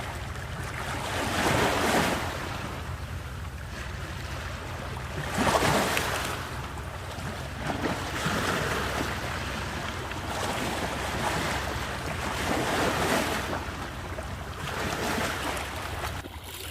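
Sea waves breaking on the shore, the surf swelling and falling back every few seconds, over a steady low rumble of wind on the microphone.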